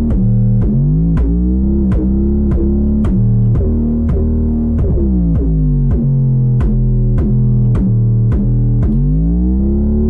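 Synthesized 808 bass from the Sublab plugin holding long low notes that glide slowly up and down in pitch from one note to the next, its slide time set to a half note. Under it, a steady ticking beat runs at about three clicks a second.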